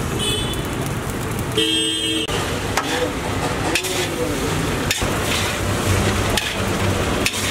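Metal spatula scraping and clanking against a large iron wok as fried rice is stirred and tossed, with short strikes about once a second over a steady sizzle and street traffic. A vehicle horn honks briefly about two seconds in.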